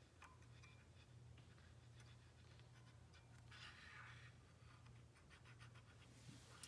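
Faint scratching of a surface-gauge scriber point drawn across a layout-dyed metal casting, loudest about halfway through, over a low steady hum.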